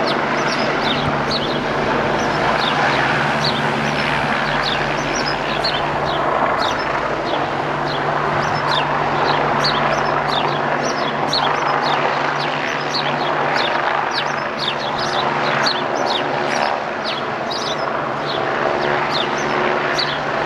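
Eurocopter EC145 police helicopter overhead: a steady rotor and turbine drone with a low hum that holds its pitch and drops away about three-quarters of the way through. Small birds chirp rapidly, several short calls a second, over the drone.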